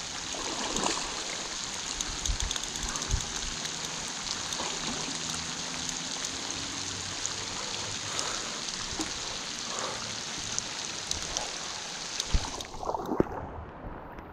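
Steady rain falling on a lake surface: a continuous hiss with many small drop patters. Near the end it turns briefly muffled.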